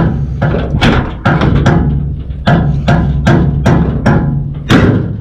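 Background music with a steady percussive beat, about two to three sharp wood-block-like hits a second over a low bass line.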